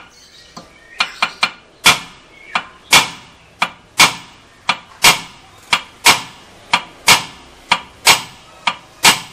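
Hammer blows on the metal front wheel hub of a Suzuki Karimun Estilo with its wheel removed. A hard ringing strike comes about once a second, with a lighter tap between each pair.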